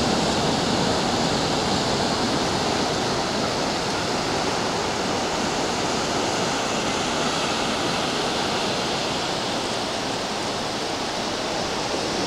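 Steady wash of ocean surf on a beach: an even, unbroken hiss with no single wave crash standing out.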